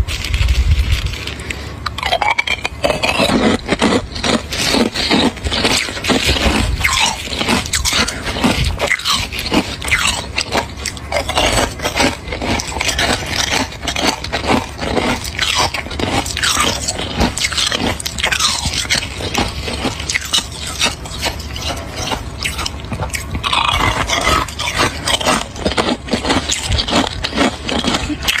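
Hard ice chunks being bitten and chewed up close to the microphone: a dense, unbroken run of cracking and grinding crunches.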